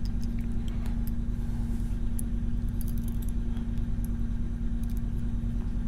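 A steady low electrical-type hum, with a few faint, light metallic clicks of small lock parts being handled.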